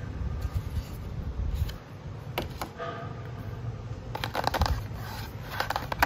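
Hands handling a perfume gift set: a paper booklet being put aside, then the cardboard tray of three glass bottles being moved and set down. These make a sharp click about two seconds in and two bursts of light clicks and taps near the end, over a low steady rumble.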